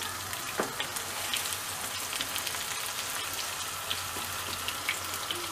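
Broth-dipped bread slices sizzling in hot oil in a nonstick frying pan: a steady hiss dotted with small crackles and pops.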